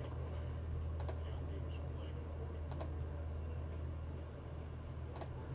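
Sharp single clicks of a computer mouse button, a second or two apart with a quick pair near the end, over a steady low hum.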